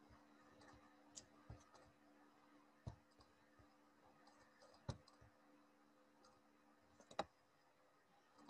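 Near silence with about six faint, scattered computer-mouse clicks, the loudest a quick double click about seven seconds in, over a faint steady low hum.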